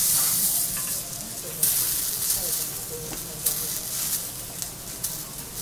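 Whole raw tiger shrimp sizzling on a hot teppanyaki griddle. A loud hiss starts suddenly, flares up again about a second and a half in, then settles to a lighter sizzle with a few small clicks.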